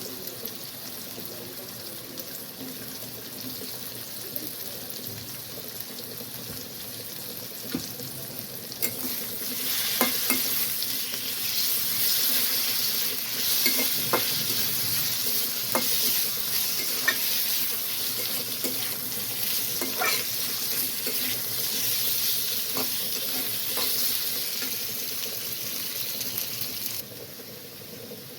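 Food sizzling as it fries in oil in a pan, stirred with a metal spatula that clicks and scrapes against the pan. The sizzle grows louder about a third of the way in and eases off near the end.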